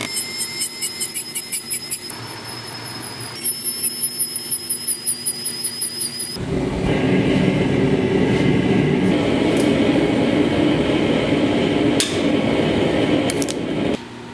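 Power hammer pounding a piece of steel in rapid even blows, about six a second, with a high metallic ring on each blow, in two runs. A little past the middle a steady, noisy mechanical sound takes over.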